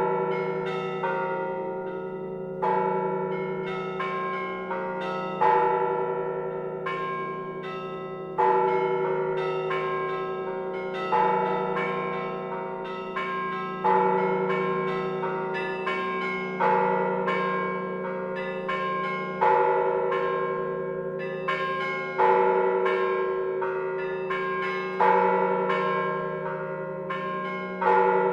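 Several church bells ringing in a repeating sequence of strokes. Each tone rings on and overlaps the next, and a heavier stroke comes round about every three seconds.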